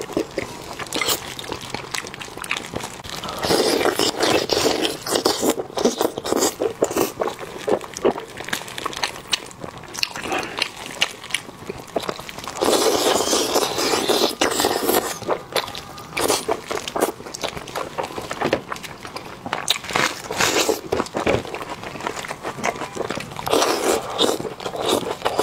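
Close-miked eating of sauce-braised chicken: wet chewing and biting as meat is torn from the bone, a steady run of sharp mouth clicks with louder spells of biting now and then.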